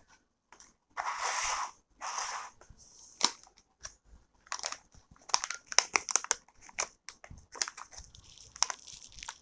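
Crinkling and rustling of a snack packet being handled: two longer rustles about a second in, then a run of short sharp crackles.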